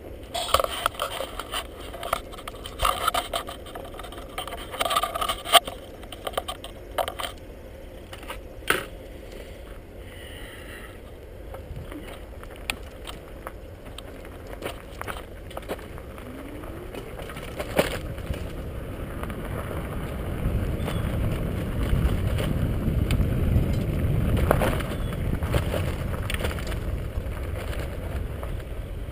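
Bicycle riding along a gravel and dirt trail: tyres crunch over the surface, and the bike rattles with scattered sharp clicks, most of them in the first several seconds. In the second half a low rumble builds and then eases off near the end.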